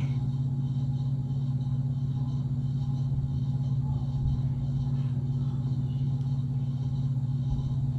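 Steady low electrical hum, unchanging, with no other sound over it.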